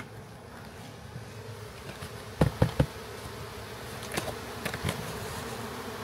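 Swarm of honey bees buzzing steadily around a cardboard box, with a few sharp knocks from the box's cardboard flaps being handled: three loud ones about two and a half seconds in, and several lighter ones a couple of seconds later.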